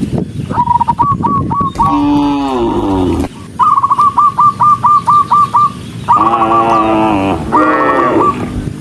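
Cows mooing in long low calls, with a bird calling a rapid run of short, repeated high notes, about five a second, between and over the moos.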